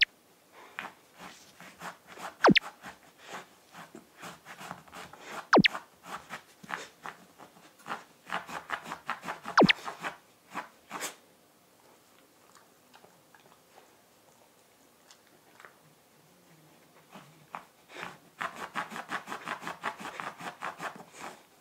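Pembroke Welsh Corgi puppy licking at the floor for leftover food: quick runs of wet tongue smacks and small clicks, with a few louder sharp clicks and a quieter pause in the middle.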